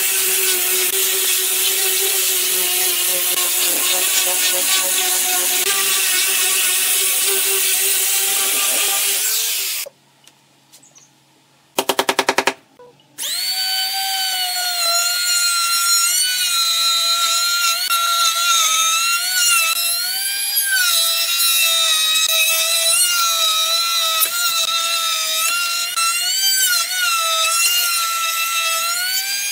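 An angle grinder with a sanding disc runs steadily while sanding wooden slats, then cuts off about ten seconds in. After a short gap and a brief loud rattling burst, a trim router whines as it routs through the slats, its pitch dipping and rising as the cut loads it.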